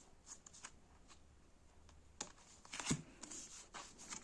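Tarot cards being handled and laid on a table: soft rustles and light clicks, with a couple of sharper taps about two and three seconds in.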